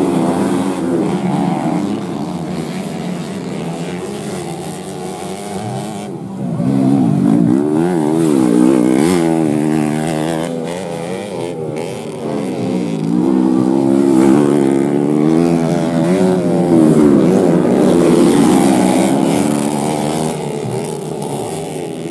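Racing motorcycles with standard underbone (bebek) engines revving hard on a dirt track, several engines at once, the pitch climbing and dropping again and again with throttle and gear changes. They get louder as bikes pass close, about a third of the way in and again past the middle.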